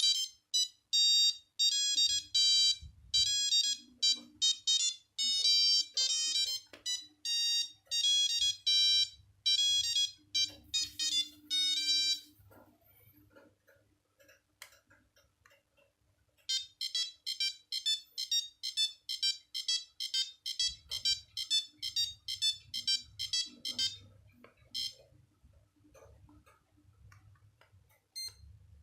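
Nokia 8210 playing monophonic ringtone melodies through its built-in ringer: a quick run of short electronic notes, a pause of a few seconds, then a second melody of rapid notes.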